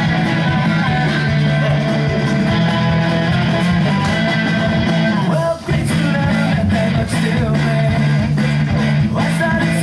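Loud guitar music with singing, playing without a break except for a momentary dip a little past halfway.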